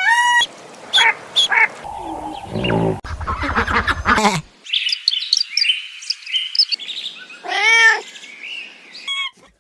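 A cat meowing in drawn-out, arching calls at the start and again near the end. In between come a low, rapid purring rattle and a run of high chirps.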